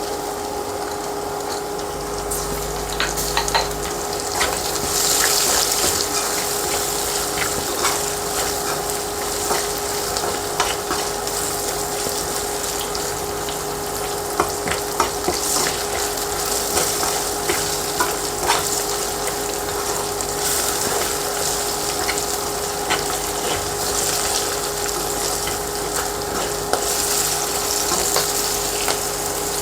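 Onions, ginger-garlic paste and green chillies sizzling steadily as they fry in oil, with a spoon clicking and scraping against the pan as the mix is stirred. A steady hum runs underneath.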